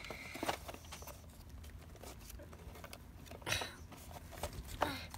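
Small plastic digging tool scraping and chipping at a crumbly compacted sand dig block, with a few louder scratches.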